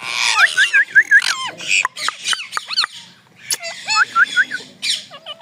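A pair of ringneck parrots calling: quick runs of short, sharp chirps and squawks, with a lull about three seconds in.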